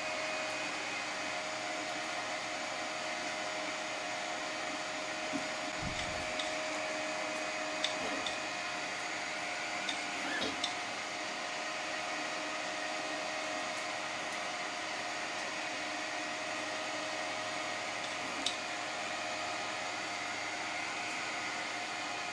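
Large 3D printer running mid-print: a steady whir of fans with a steady motor hum as the print head moves, a few faint ticks, and a brief low thump about six seconds in.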